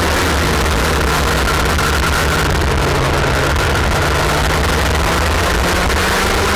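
IAME X30 125cc two-stroke kart engine running hard on track, picked up by a camera mounted on the kart, with wind noise over the microphone. The engine note drops right at the start, then holds fairly steady.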